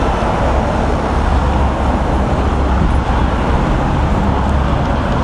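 Steady city-street traffic noise: a continuous hiss and low rumble with no single event standing out.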